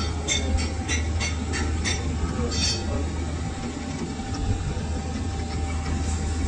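Metal-turning lathe running with a steady low hum, and a light rhythmic ticking about three times a second that stops about two seconds in.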